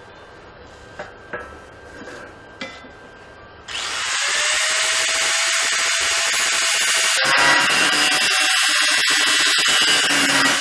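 Electric angle grinder, a few light knocks of handling, then switched on almost four seconds in, its motor whining steadily; from about seven seconds in the whine gives way to a harsher grinding noise as the cutting disc bites into a steel tube.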